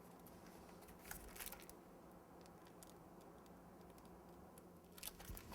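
Near silence: room tone with a steady low hum and a few faint, brief clicks about a second in and again near the end.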